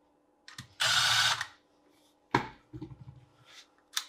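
A cordless power driver runs in one short burst of under a second, driving a screw on a garbage disposal's housing. A sharp click and light metallic rattling of small parts follow.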